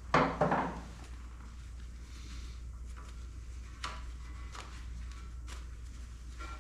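Two quick hisses of silicone lubricant spray from an aerosol can, right at the start, followed by a few light clicks of parts being handled over a steady low hum.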